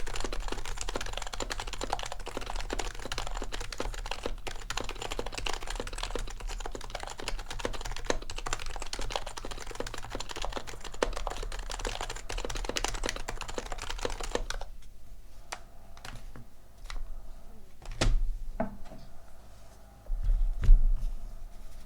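HHKB Pro 2 Type-S keyboard with Topre switches, stock apart from lubed stabilisers, typed on fast and steadily. About fifteen seconds in the typing gives way to sparse single keystrokes, with a couple of louder, deeper key strikes near the end.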